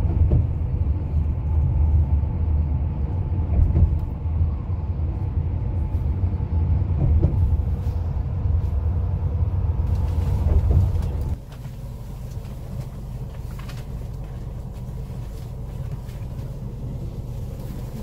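Inside an intercity coach under way: a steady low engine and road rumble with a faint hum on top. About eleven seconds in it drops to a quieter, steadier drone.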